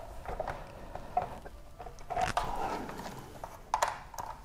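T10 Torx screwdriver working at a stiff small screw in an instrument cluster housing: scattered clicks and ticks of the bit and handling, with a longer scraping stretch about halfway through as the screw resists turning.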